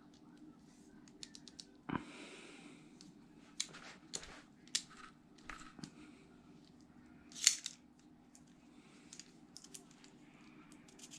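Leatherman OHT multitool being worked by hand: irregular sharp metal clicks and snaps as its spring-actuated pliers and locking tools are opened and closed. The loudest snap comes about seven and a half seconds in.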